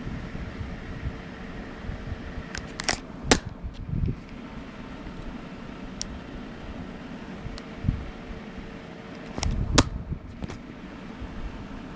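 Sharp finger knocks on a Nokia N95 phone's lens shutter slider, picked up through the phone's own body: a quick cluster of three about three seconds in, single taps around six and eight seconds, and two more near ten seconds, with dull handling thuds. Each knock pushes the camera's focusing lens back for a makeshift macro focus. A steady low hum runs underneath.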